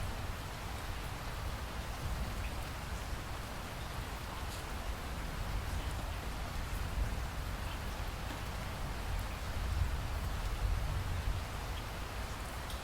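Steady rain with a low rumble of distant thunder underneath that swells about ten seconds in.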